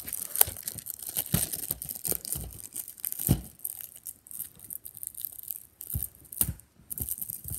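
Clear cellophane shrink-wrap being torn and peeled off a plastic DVD case, crinkling with irregular crackles and a few sharper snaps.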